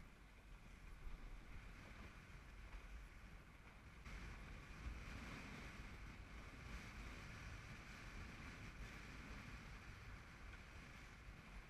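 Faint wind buffeting the microphone and water rushing along the hull of a Ness Yawl, a small open sailboat, under way in strong wind. A steady rushing noise that grows a little louder about four seconds in.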